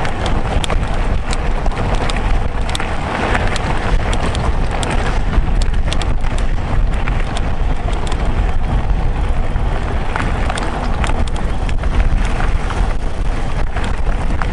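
Mountain bike riding along a gravel trail: tyres rolling over stones and the bike rattling, with frequent sharp clicks, under steady wind noise on the microphone.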